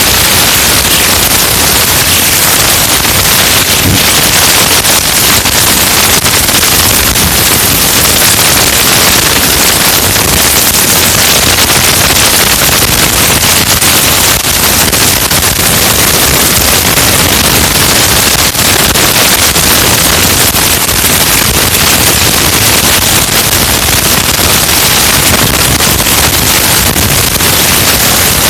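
Loud, steady static-like hiss with no snoring rhythm in it: noise from the recording phone's microphone while the sleeper lies on top of it.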